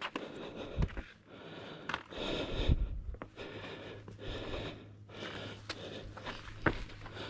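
A hiker breathing hard, in repeated rasping breaths, while climbing down a steep rocky slope. Footsteps scuff on the rock, with a few low thumps and light clicks.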